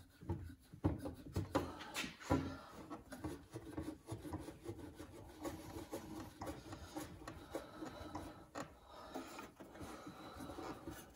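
Faint, irregular scraping and small clicks of metal on metal: a WEN thickness planer's height screw being turned by hand while a steel parallel is tried under the head.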